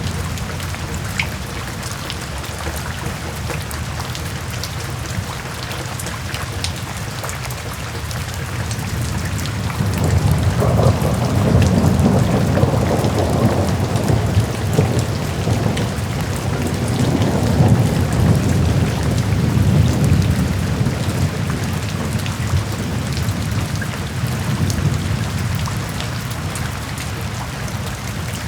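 Steady rain falling, with a long low rumble of thunder that builds about a third of the way in and dies away over roughly ten seconds.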